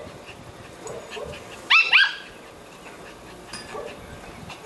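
Small poodle barking in play: two quick, high-pitched barks close together about two seconds in.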